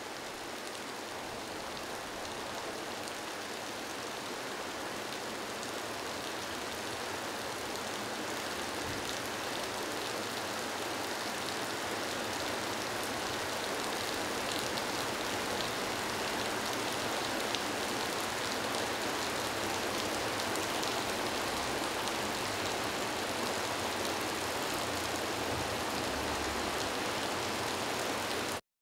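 Stream water flowing over rocks: a steady rush that slowly grows louder and cuts off abruptly near the end.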